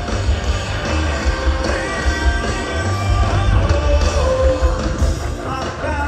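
A rock band playing live with a singer, with heavy bass under the guitars and the sung vocal line.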